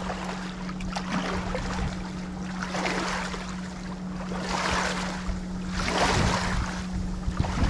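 Shallow stream water rushing and splashing around a gloved hand holding a small tiger muskie in the current to revive it, with stronger surges of splashing about three, five and six seconds in.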